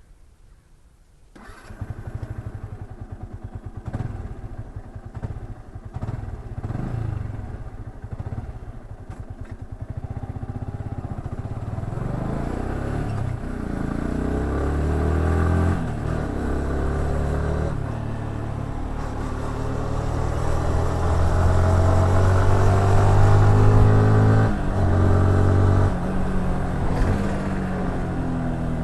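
Yamaha R15S single-cylinder four-stroke motorcycle engine coming in abruptly about a second and a half in, running unevenly with short blips of the throttle. It then pulls away, revving up in rising sweeps with sharp drops as it shifts up through the gears, getting louder toward the end.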